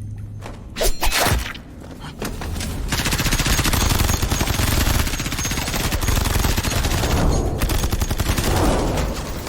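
A loud bang about a second in, then sustained rapid gunfire, many shots in quick succession, from about three seconds in.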